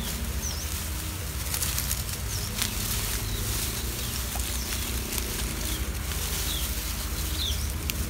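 Wind rumbling steadily on the microphone, with grass rustling and light handling clicks as hands move through a grassy nest. A few faint, short, high chirps are scattered through it.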